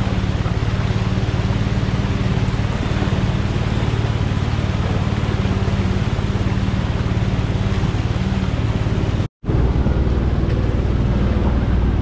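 Off-road 4x4's engine running steadily at a constant pitch, with a steady rushing noise, as it works through mud. The sound cuts out for a split second about nine seconds in.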